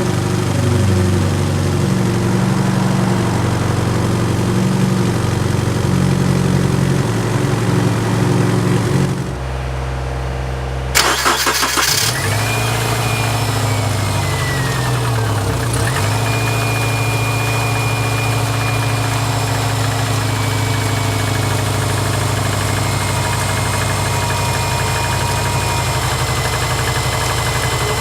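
Subaru Forester's flat-four engine, which has a knock, running until about nine seconds in. It is cranked and restarted about two seconds later, then idles steadily with a high whine that falls in pitch and then holds.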